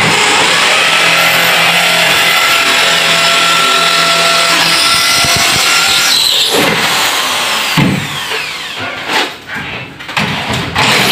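Corded electric drill running hard for about six seconds, then letting off and winding down with a falling whine. It gives a few shorter bursts of drilling near the end.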